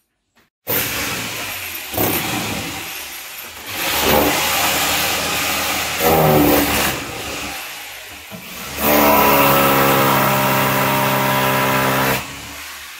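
Electric drill run in several bursts, drilling holes for a termite treatment. Its motor whine surges a few times, runs steadiest and loudest for the last few seconds, then cuts off suddenly near the end.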